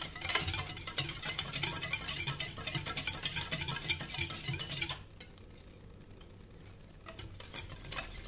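Whisk stirring hot water and lumps of African black soap in a stainless steel bowl, a rapid, dense clicking of the whisk against the metal as the soap is dissolved. It stops abruptly about five seconds in and starts again more faintly near the end.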